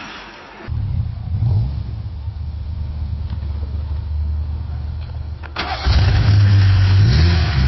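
Car engine starting: it catches about a second in with a brief blip of revs, settles into a steady idle, and after a click near the end runs louder and is revved up and back down.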